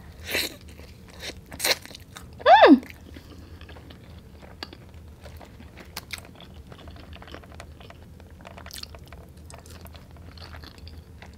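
Close-up mouth sounds of eating seasoned fries: a few louder bites and crunches in the first couple of seconds, then steady small wet chewing clicks. About two and a half seconds in, a brief sound slides down in pitch.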